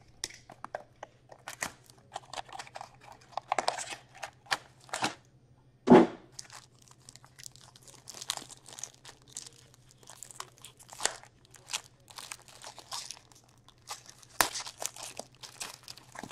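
Hands opening a box of SP Game Used hockey cards with many short clicks and crackles and one louder thump about six seconds in, then crinkling and tearing a foil card pack open.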